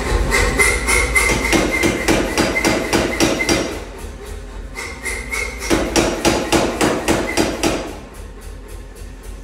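Self-contained pneumatic power hammer forging a red-hot steel billet: the ram strikes in a fast, even rhythm of about five blows a second. The blows are heavy at first, lighter from about four seconds in, heavy again for a couple of seconds, then lighter near the end.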